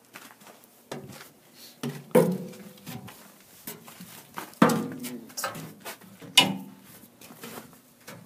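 Sheet-steel covers on a tub grinder being handled: several metal knocks and clanks, the three loudest about two seconds apart, each with a short ring.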